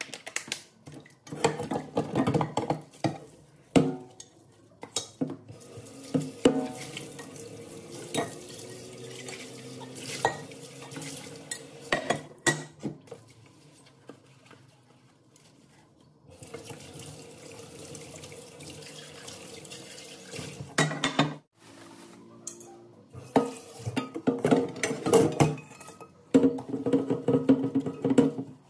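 Non-stick pots and lids being washed by hand in a stainless steel sink: a soapy sponge scrubbing, pots and lids knocking and clinking against the sink, and tap water running.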